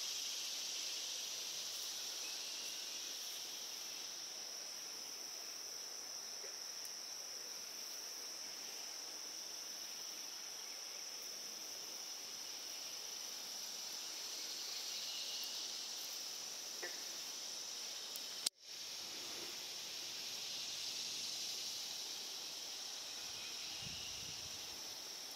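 Summer insect chorus: a steady high-pitched trill with a lower buzzing band that swells louder twice. It cuts out for an instant about two-thirds of the way through.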